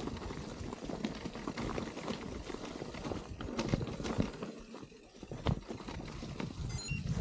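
Mountain bike riding over rough, rocky trail: uneven knocks and rattles from the tyres and frame.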